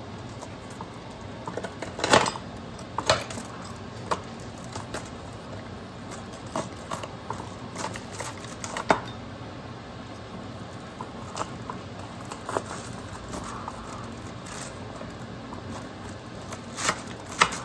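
Rotary pizza cutter being run through a pizza on a foil-lined metal pan: irregular sharp metallic clicks and knocks as the wheel and handle strike the foil and pan. The loudest clicks come about two seconds in and near the end.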